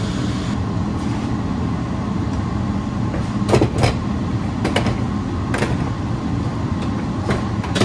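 Steady low machine hum, with a few sharp clicks and knocks from about three and a half seconds in, as things are handled.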